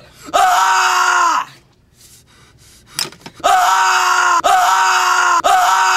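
A teenage boy screaming at full voice, each scream held at an even pitch. One long scream about a second long, a pause broken by a brief sound, then three more held screams in quick succession.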